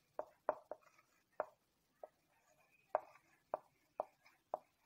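Marker pen writing on a whiteboard: about nine short, sharp taps and strokes at an uneven pace, roughly two a second, as letters are written.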